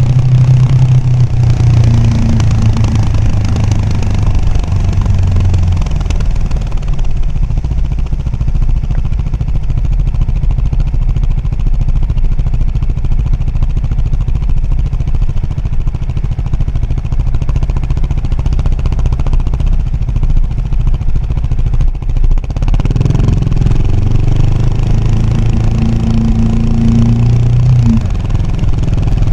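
Husqvarna Vitpilen 701's single-cylinder engine running through a Shark SRC 4 slip-on exhaust while riding at low speed. The engine note drops lower after about six seconds and holds there. About 22 seconds in it rises again as the throttle opens.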